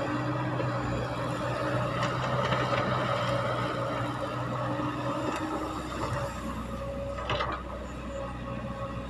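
Caterpillar tracked hydraulic excavator's diesel engine running under load as the machine swings a bucket of earth over a dump truck, empties it and swings back to dig. The engine note shifts about halfway through, and there is one short, higher-pitched sound about seven seconds in.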